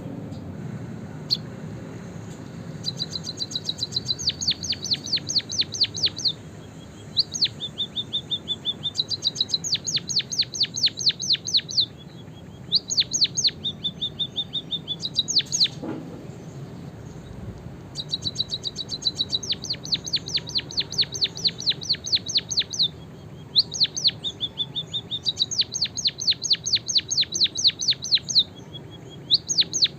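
Caged songbird singing a canary-style song: bursts of rapid, evenly repeated high chirps strung into rolling phrases a second or two long, broken by short pauses and one longer break about halfway through. A steady low hum runs underneath.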